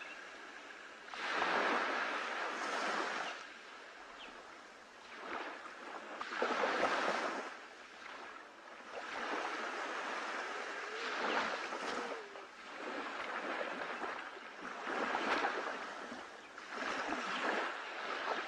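Choppy sea: small waves breaking and splashing, swelling and fading in irregular surges every couple of seconds.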